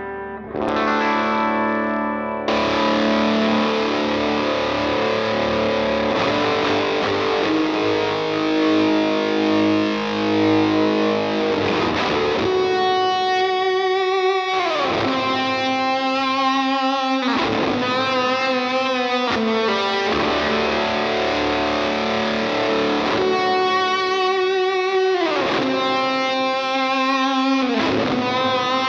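Electric guitar played through a Seeker Electric Effects MKI Wedge, a MKI Tone Bender-style fuzz pedal, giving thick, sustained distorted ambient tones. In the second half the notes swoop downward in pitch several times.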